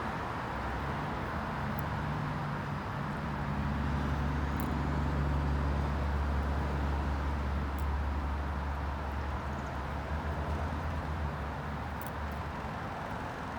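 A motor vehicle passing by: a low engine rumble that swells to its loudest midway, then fades away.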